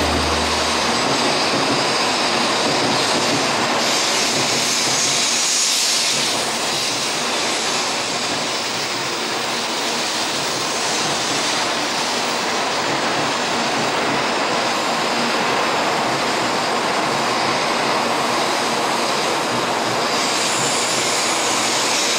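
Tokaido Shinkansen bullet train pulling into the station, its cars gliding past the platform doors with a steady rushing hum of air and running noise. A brighter hiss comes in around the middle and again near the end.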